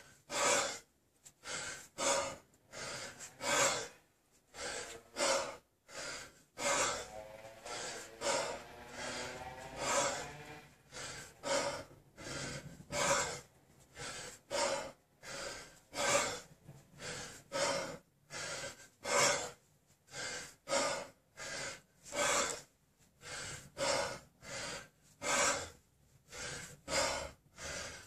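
Hard, rhythmic breathing of a man snatching a 32 kg kettlebell: sharp gasps and forced exhalations, about one to two a second, keeping time with the reps of a long set.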